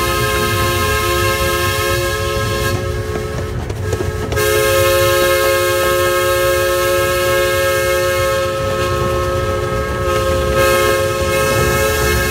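Miniature steam locomotive's whistle sounding a long, steady chord of several tones. It thins briefly about three to four seconds in and comes back louder, over the low rumble of the riding cars on the track.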